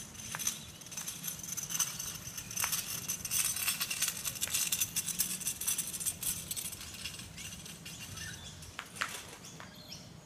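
Child's kick scooter rolling fast on asphalt, its small wheels and deck giving a continuous clicking rattle. It grows louder as it comes close, peaks a few seconds in, then fades away.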